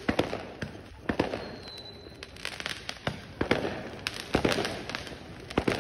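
Fireworks bursting on all sides: irregular sharp bangs with crackling between them, the loudest about a second in and near the end.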